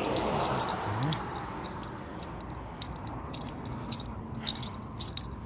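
A hiss fades out over the first second; after that comes light, irregular clicking and jingling of a pit bull's metal chain collar and leash clip as the dog walks and sniffs along the pavement.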